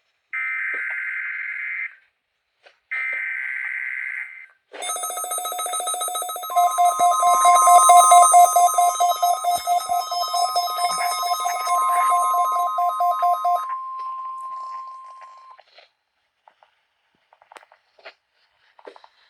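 NOAA Weather Radio weekly test signal. It opens with the last two of three raspy SAME digital header bursts, each about a second and a half long. About five seconds in, a weather alert receiver's rapid electronic ringing alarm starts up. Soon after, the steady 1050 Hz warning alarm tone joins it, holds for about nine seconds and fades out.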